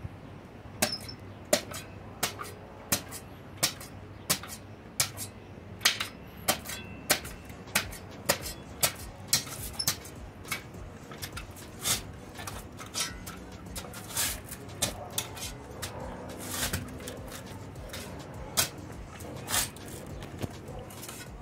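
Steel spade chopping and scraping into hard-packed dry earth, about two sharp strikes a second, irregularly spaced, breaking up clods of soil.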